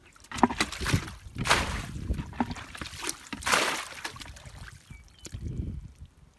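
Muddy water splashing and pouring as a small plastic bucket scoops it from a shallow pit and tips it out, in several separate surges, the loudest about a second and a half and three and a half seconds in.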